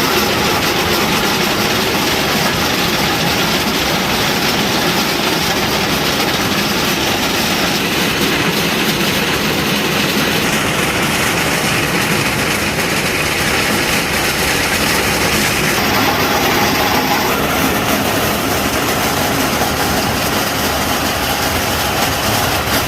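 Heavy machine running continuously, a loud steady mechanical din with an engine note underneath and no pauses.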